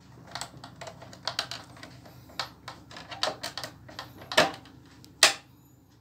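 Plastic clicks, taps and rattles as the plastic cover over a split AC indoor unit's control board is handled and pulled off, with two louder knocks about a second apart near the end.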